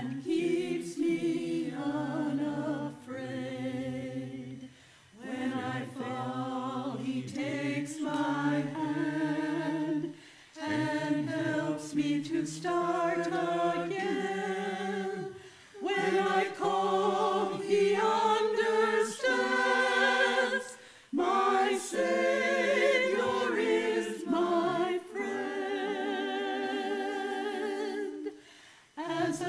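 Small mixed choir of men's and women's voices singing a sacred song together, in phrases with short breaks for breath about every five seconds.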